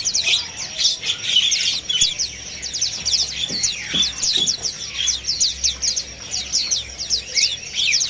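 A crowded cage of white-eyes chirping: many short, high chips overlapping without a break.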